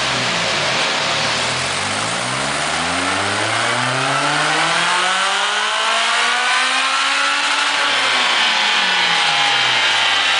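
Loud dyno power run of a Lotus Elise S2 with a Honda engine conversion on a rolling road. The engine climbs steadily through the revs under load for about seven seconds, then the revs fall away as it comes off the throttle.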